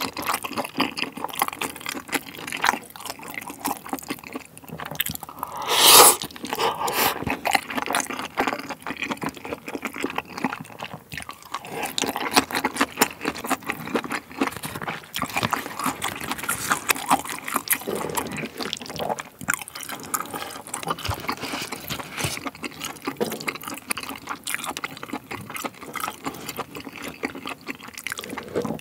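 Spicy stir-fried pork tripe and melted cheese sizzling and bubbling on an electric griddle: a steady crackle of many tiny pops, with one louder noise about six seconds in.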